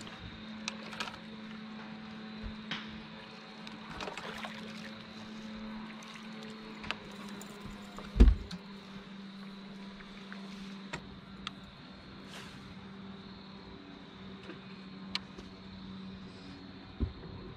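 Steady hum of a bass boat's bow-mounted electric trolling motor, with scattered clicks and ticks of rod and reel handling. A loud thump about eight seconds in as a small bass is swung aboard onto the deck.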